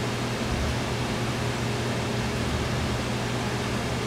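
Steady hiss with a low hum underneath: room tone with no distinct events.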